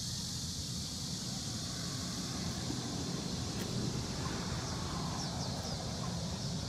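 Steady outdoor background noise: a low rumble under a high hiss, with a few faint high chirps about five seconds in.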